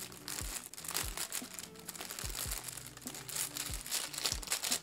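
White tissue paper wrapped around a handbag crinkling and rustling as it is handled and pulled at.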